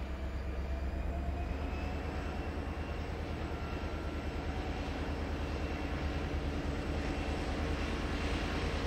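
Diesel freight locomotive approaching with a steady low engine drone that grows gradually louder as it nears.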